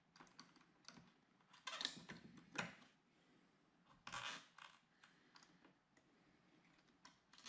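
Hand cutters snipping plastic weed whacker line flush at a cabinet door's screw hole, with small handling clicks: a few faint sharp snips and clicks, the loudest about two seconds in and about four seconds in.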